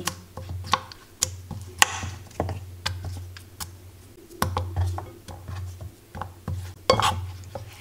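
Raw sweet potato slices being dropped into a bowl of thick batter, with irregular taps and soft wet clicks. A low steady hum runs underneath.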